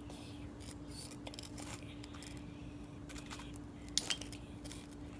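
Scattered small clicks and clinks of objects being handled, with two sharper clicks about four seconds in, over a steady low hum.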